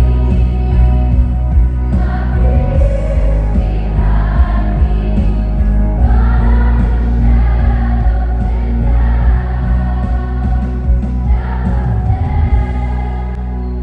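A large group of voices singing together as a choir, over instrumental accompaniment with a sustained bass.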